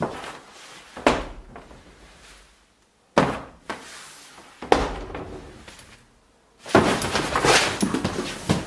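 Large cardboard display boards being handled: four sharp thuds, each fading off, then about two seconds of rustling and scraping near the end as a board is moved.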